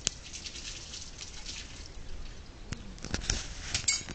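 Water dripping and splashing at an outdoor washing stand as a woman washes with her hands over a bucket: scattered small irregular ticks and clicks, with a few heavier knocks about three seconds in.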